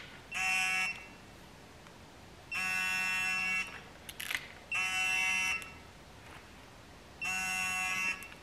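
Digital torque wrench beeping four times, each tone lasting about half a second to a second, as the cam gear bolts are tightened to the set 25 ft-lb. A brief click comes between the third and fourth beeps.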